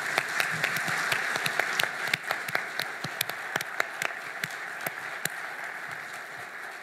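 Audience applauding in a large hall, dense clapping that gradually thins out and fades.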